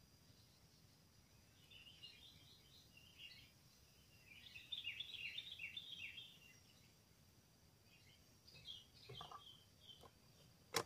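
Small birds twittering in quick clusters of high chirps, densest in the middle, over otherwise quiet woodland. A single sharp shot cracks at the very end.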